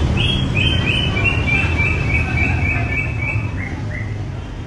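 A bird calling a rapid run of about a dozen short, high notes, about three a second, each falling slightly, over a low steady rumble. The run stops about three and a half seconds in, and two more notes follow.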